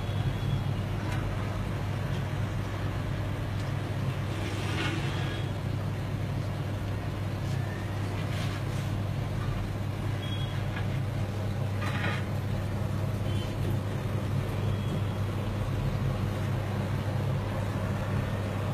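Steady low hum with an even rushing noise over it, from the running pumps and water circulation of a marine reef aquarium.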